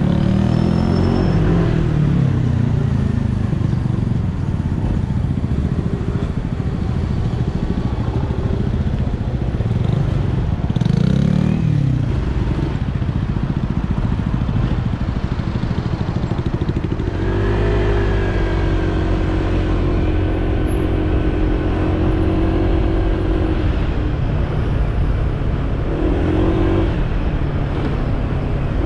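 Honda PCX 125 scooter's single-cylinder engine on the move: revs falling as it slows at the start, then pulling away with a steady engine drone that rises gently, and climbing revs again near the end.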